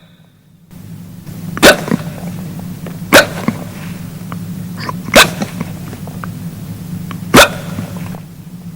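Four short, sharp hiccups, about one every two seconds, over a steady low background hum.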